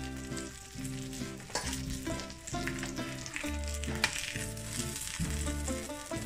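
Chicken patties sizzling on a hot griddle pan, heard over background music with a melody and a stepping bass line. A short sharp knock about four seconds in as the spatula lifts a patty off the griddle.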